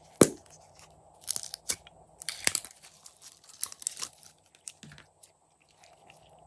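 A sharp click as the plastic lid of a baby-bottle-shaped slime container snaps open, then three spells of sticky crackling as clear green glitter slime is pulled out of the container.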